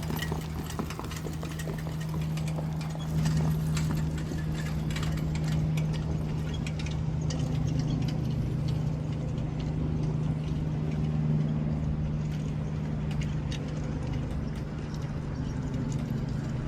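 Horses' hoofbeats from a harness race, a rapid run of sharp clip-clops over a steady low hum. The hoof clicks are densest in the first half and thin out later.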